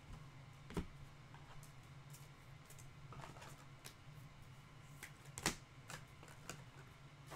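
Glossy chrome trading cards being flipped and slid against one another in the hands, giving faint scattered ticks and clicks, with two sharper snaps about a second in and about five and a half seconds in. A steady low hum runs underneath.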